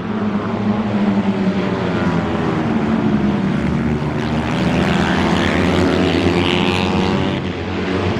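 Several small racing motorcycles at high revs, overlapping engine notes sweeping up and down in pitch as they go by.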